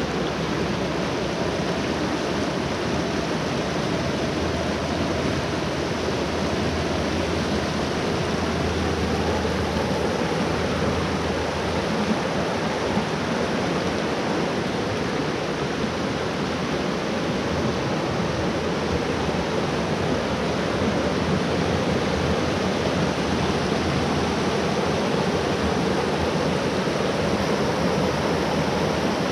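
Creek water rushing and splashing over shallow cascades on layered rock ledges: a steady, even rush, a little louder near the end.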